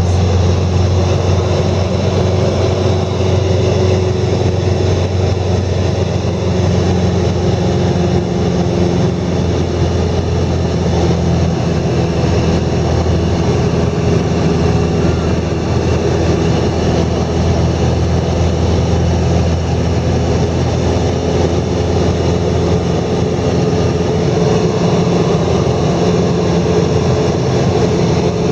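A heavy engine running steadily at an even speed, with a strong low hum.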